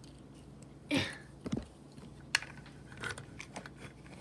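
Plastic Lego pieces being handled and pressed together: scattered light clicks and clatters, with a brief louder rustle about a second in and one sharp click a little past two seconds.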